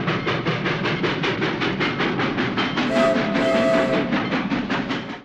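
Train wheels running over rail joints in a fast, steady clickety-clack, with the train's horn sounding twice about three seconds in, a short blast and then a longer one.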